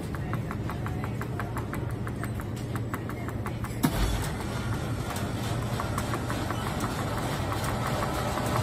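Steady low hum of a frozen-drink (Slurpee) dispenser, with fast regular ticking through the first half and a single thump about four seconds in.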